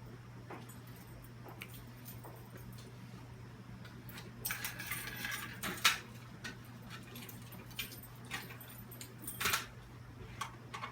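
Fire alarm pull stations being handled and opened for resetting: scattered metal clicks and rattles, a busy cluster about halfway through with one sharp snap, and another loud click near the end, over a steady low hum.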